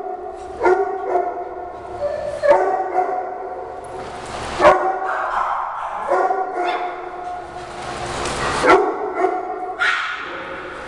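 Small dogs barking and yapping at each other in a play fight: sharp, high barks coming every second or two, the loudest about halfway through and again near the end.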